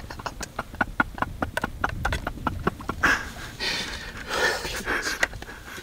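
Rapid light clicks and ticks as an arrow is handled at a compound bow's quiver, followed about three seconds in by a few breaths.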